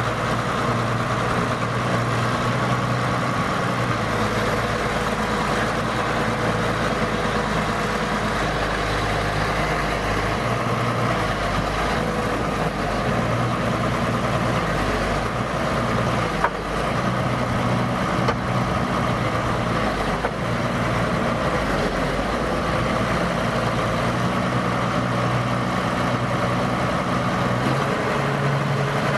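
Excavator's diesel engine running steadily, with one sharp knock about halfway through.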